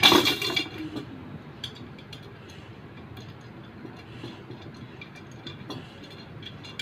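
A loud burst of metallic clinking in the first second, then faint scattered light ticks, from the metal spokes of a motorcycle wheel being laced and tightened.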